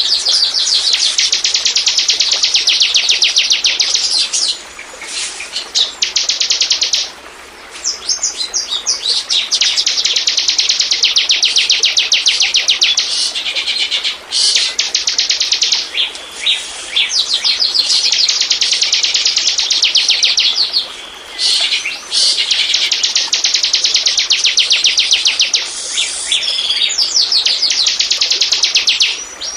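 Ciblek (bar-winged prinia) song played as a bird-lure recording: long, loud trills of rapid, high, repeated chip notes, broken by short pauses every few seconds.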